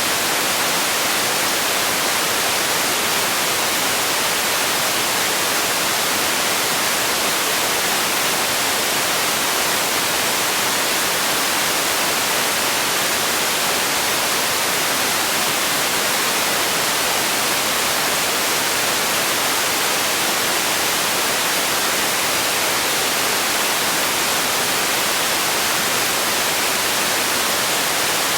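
Steady white noise: a constant, even hiss, strongest in the treble.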